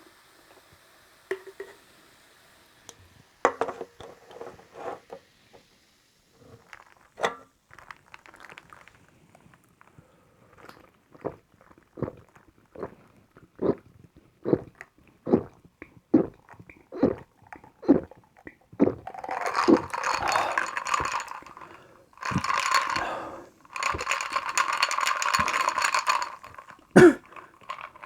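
Pepsi cola being drunk close to the microphone: short gulps at about one a second, then three longer stretches of fizzing hiss.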